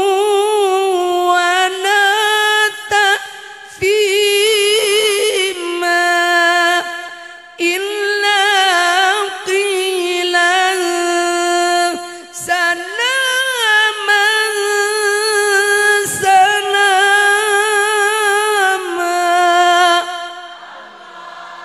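A woman singing an Arabic religious verse solo and unaccompanied into a handheld microphone, in long, ornamented notes with a strong vibrato and short breaks for breath. The singing stops near the end.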